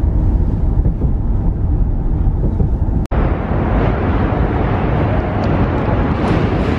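Deep, steady road rumble inside a moving car's cabin. About three seconds in it cuts off abruptly and gives way to brighter, hissier city traffic noise.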